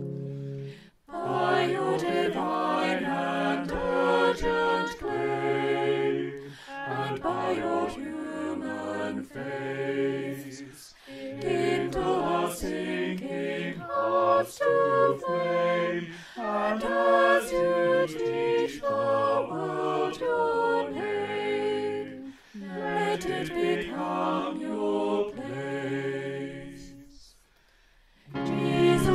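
A small mixed choir of women's and men's voices sings a hymn verse, unaccompanied, in phrases with short breaths between them. The singing fades out about a second and a half before the end, and the next verse begins right at the close.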